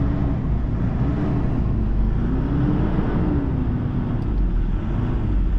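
2013 Toyota Fortuner's turbodiesel engine running steadily after a valve tappet overhaul, injector check and turbo cleaning, with no fuel knock heard.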